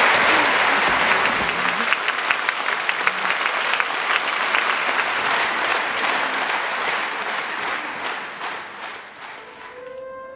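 Concert audience applauding. It is loud at first and thins out to scattered individual claps near the end.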